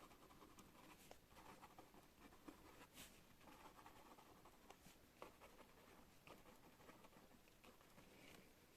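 Pen writing on paper: faint irregular scratching strokes with small ticks as the pen lifts and touches down.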